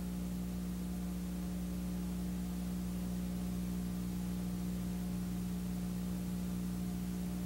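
Steady electrical hum, several pitches held together with the strongest low in pitch, over an even hiss, with no other sound on top.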